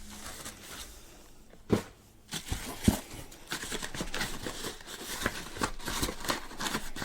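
Tissue paper and packaging crinkling and rustling as a wrapped package of books is handled and opened, with two soft knocks about two and three seconds in.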